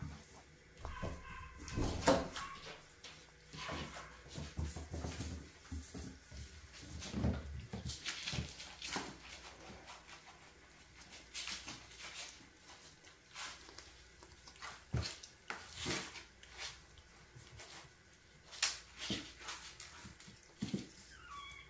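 Kittens scampering and tussling on a tile floor: scattered light knocks, scuffles and scrapes of paws and bodies, with a brief high mew near the end.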